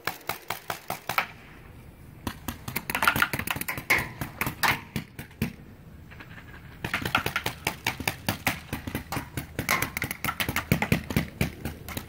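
Paintball markers firing in rapid volleys of sharp pops. There is a short run of shots at the start, a pause of about a second, then two longer, dense strings of shots, several a second, with a brief lull between them about halfway through.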